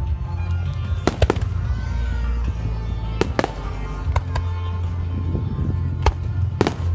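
Fireworks exploding in a large display: several sharp bangs at irregular intervals, the loudest about a second in, around three seconds in and twice near the end, with music playing under them.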